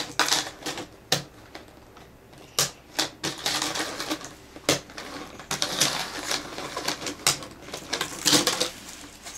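Interlocking plastic track pieces of the Anpanman Kunekune Road toy set clicking and clattering as they are snapped together and pushed about on a wooden table, in an irregular run of sharp clicks.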